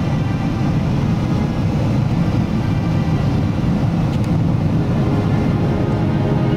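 Cabin noise of a Boeing 777-200ER heard beside its GE90 engine while low over the runway on landing: a steady deep rumble of engine and airflow with steady tones above it.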